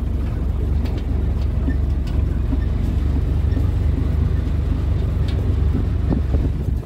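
Can-Am Defender side-by-side's engine running steadily while driving, with a few short knocks and rattles.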